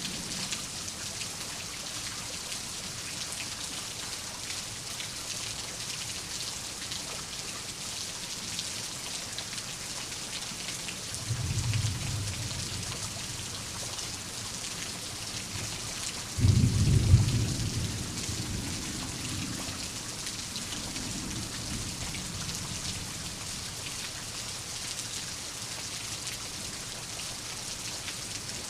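Steady rain hissing, with two rolls of thunder: a softer rumble about a third of the way in, then a louder one that breaks in suddenly past the middle and rumbles away over several seconds.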